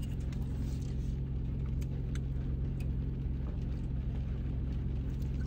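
Steady low hum of a car idling, heard from inside the cabin, with a few faint clicks.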